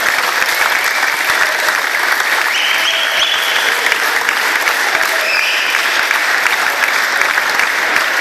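Crowd applauding, a dense, steady clapping that holds at one level throughout.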